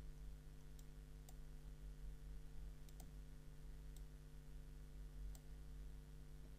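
Faint room tone with a steady low hum and a handful of soft, scattered clicks.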